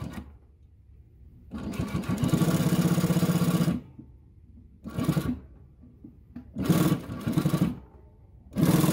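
JUKI LU-1560N two-needle industrial sewing machine stitching through a thick denim strap in bursts: one run of about two seconds, then three shorter runs, stopping between each.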